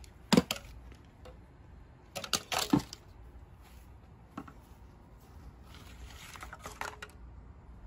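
A few sharp knocks and clicks: one about a third of a second in, a cluster between two and three seconds in, and a softer one later, followed by a short rustling stretch near the end.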